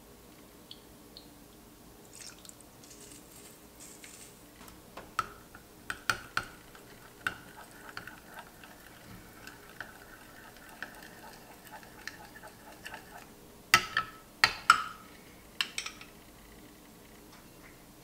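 A metal spoon stirring a thick honey mustard dressing in a glass bowl: wet stirring with the spoon scraping along the glass, and scattered clinks, the loudest few about 14 to 16 seconds in.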